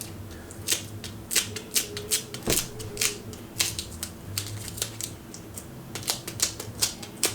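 Tape dabbed repeatedly against a sneaker midsole, sticking and pulling away in short sharp ticks, about two a second and unevenly spaced, lifting loose paint particles left after stripping the midsole.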